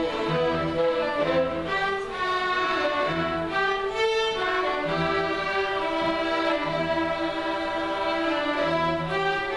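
A school string orchestra playing, violins carrying the melody over low string notes that recur about once a second.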